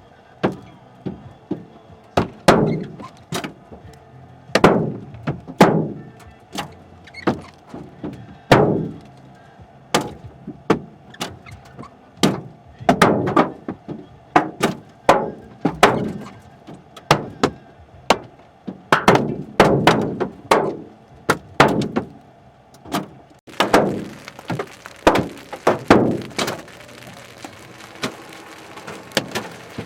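Baseball- to softball-sized hailstones striking a vehicle in irregular, loud single bangs, one to a few a second. About three-quarters of the way through, a steady rain hiss sets in under the impacts.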